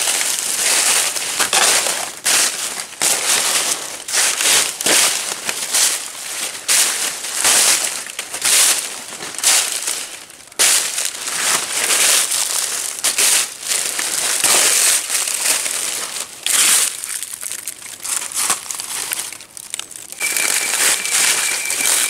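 Footsteps crunching through dry fallen leaves at a walking pace, a crackling burst with each step.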